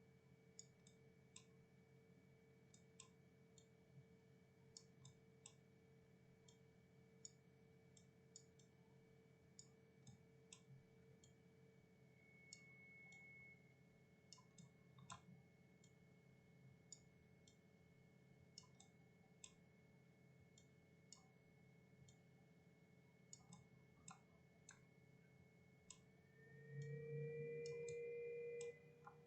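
Faint scattered clicks of a computer mouse and keyboard over a low steady hum, near silence. Near the end a louder hum rises for about two seconds, then stops.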